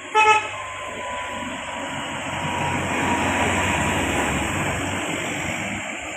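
A bus horn gives one short, loud blast, then the bus passes close by, its engine and road noise swelling and fading away.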